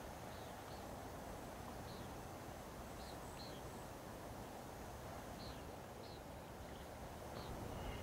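Steady low rush of calm coastal water and open air, with short high bird chirps scattered through, repeated every second or so.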